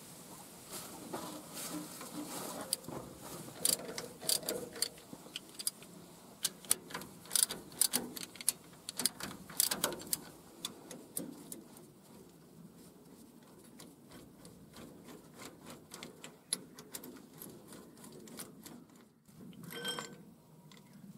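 Ratchet socket wrench clicking in quick runs as the rocker-shaft bolts on a Nissan SD22 diesel's cylinder head are loosened, the clicks thinning out after the middle, with a ringing metal clink near the end as the rocker assembly is handled.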